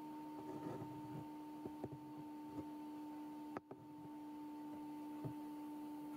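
Faint, steady electronic hum at two pitches, a low one and a higher one, under quiet room tone, with a few soft clicks scattered through it and a brief dropout a little past halfway.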